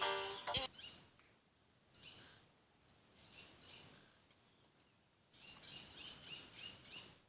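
Faint wild birds calling in the jungle: a few short high chirps, then near the end a run of about six quick repeated high notes, about three a second.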